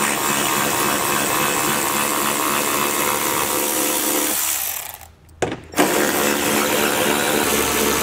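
Right-angle power ratchet with a 10 mm socket running, backing out bolts from the underside of the rear bumper fascia. It runs in two spells, with a short break and a brief blip of the tool about five seconds in.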